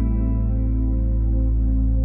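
Ambient background music: sustained held chords over a deep steady bass.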